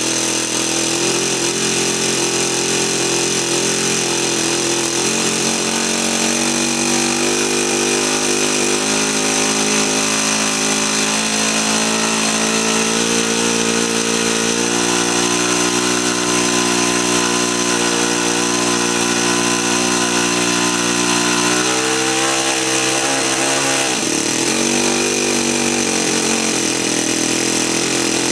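Saito FA-65 single-cylinder four-stroke glow engine on an RC model airplane running at a steady speed, briefly dipping in speed and picking up again about three-quarters of the way through. It runs smoothly, running well for an engine that has not been run in a while.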